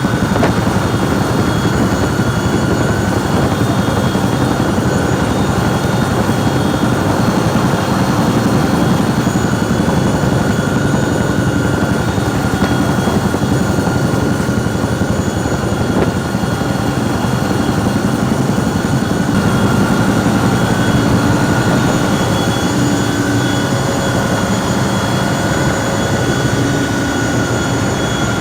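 Firefighting aircraft engine running, a steady loud drone with a thin high whine that wavers slightly in pitch.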